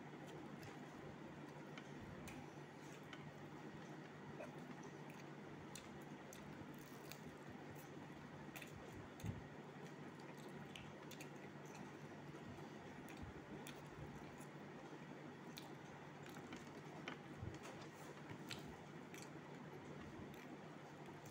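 Faint chewing and soft, wet mouth clicks of someone eating a mouthful of rice and lentils, with one louder knock about nine seconds in and a steady low hum underneath. Near the end, fingers squish rice into dal on a steel plate.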